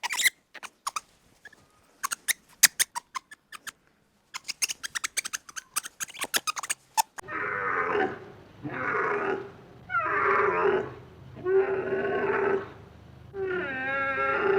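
An animal calling: first a scatter of quick, sharp clicks or chirps, then about halfway through five drawn-out calls of roughly a second each, repeated at an even pace.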